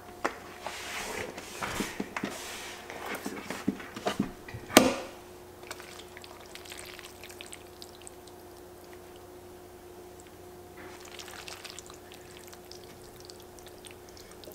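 Metal kitchen tongs clicking and sauce-coated fettuccine squelching wetly as it is lifted and tossed, with a sharp click about five seconds in. After that the wet handling sounds are quieter, over a faint steady hum.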